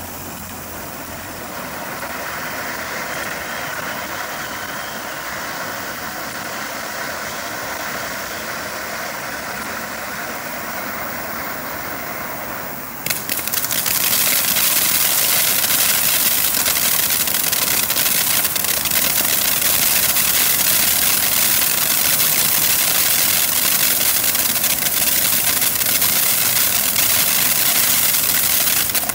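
Black Cat Demo Derby firework fountain spraying sparks with a steady hissing rush. About halfway through it jumps much louder and brighter into a crackling spray, which stops abruptly at the end.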